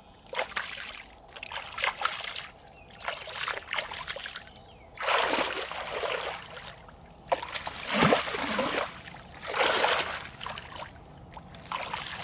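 Bare feet stomping and churning a shallow muddy puddle: irregular bursts of splashing and sloshing water, the biggest about five, eight and ten seconds in.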